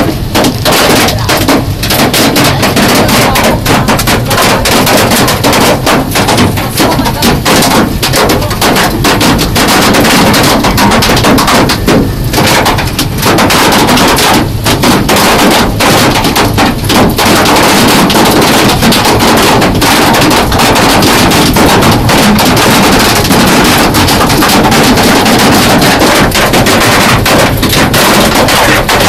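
Hailstones pelting a car's roof and windows, heard from inside the cabin: a loud, dense, unbroken rattle of hard impacts.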